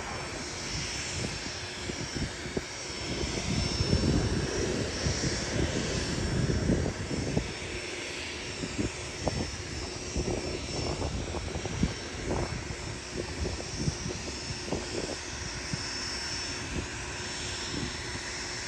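The four Allison T56 turboprop engines of a Lockheed P-3C Orion in a flypast, a steady drone with a faint constant tone. It is loudest from about four to seven seconds in, then eases off.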